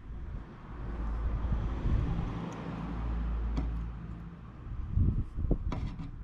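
A motor vehicle's engine rumble swelling and then fading, as it passes by, followed by a few sharp knocks near the end.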